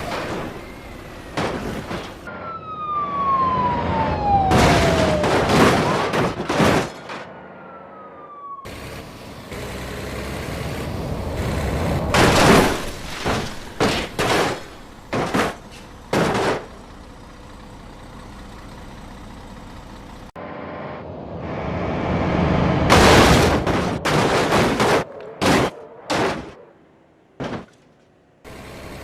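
Siren-like wail falling in pitch over a few seconds, among repeated short, loud bursts of vehicle noise, broken up by several abrupt cuts.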